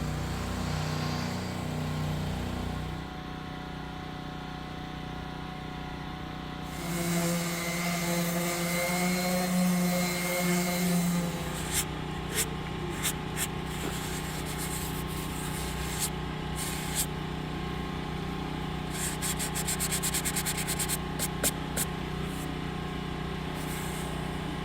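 A power tool's motor running steadily, growing louder and wavering in pitch for a few seconds about a third of the way in. Sharp clicks come through the second half, with a quick rattling run of them near three-quarters through.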